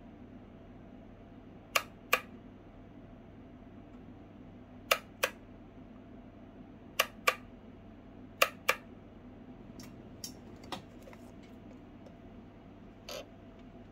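Toggle switch on a Radiolink AT9S Pro RC transmitter flipped back and forth, giving four loud paired clicks a couple of seconds apart, then a few fainter clicks near the end, over a low steady hum.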